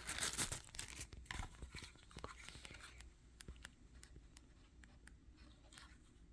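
Faint rustling and crinkling of packaging being handled, densest in the first second and a half, followed by scattered light clicks and taps that thin out.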